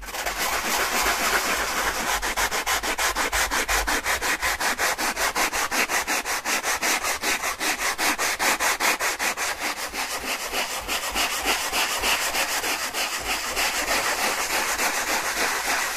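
Sanding sponge rubbed in quick, even back-and-forth strokes over dried filler on a model road surface, smoothing it down and laying the buried guide wire bare again.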